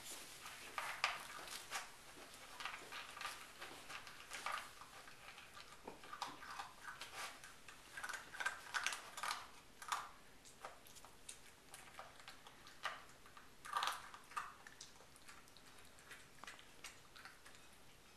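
Golden lab puppy eating dry food from a plastic bowl: irregular faint crunching and clicks of kibble knocking against the bowl.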